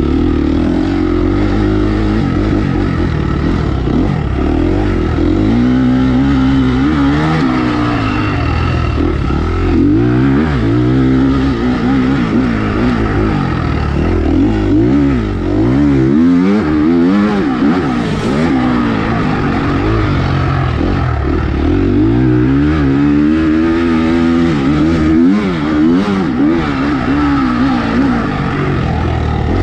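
Motocross bike engine heard close up from on board, revving up and down again and again as the rider accelerates, shifts and backs off, its pitch rising and falling in repeated sweeps.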